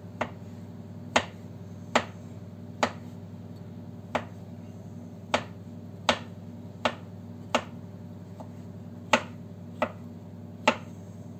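Chef's knife chopping carrots on a wooden cutting board: about a dozen sharp knocks, roughly one a second and unevenly spaced, as the blade strikes the board through the carrot.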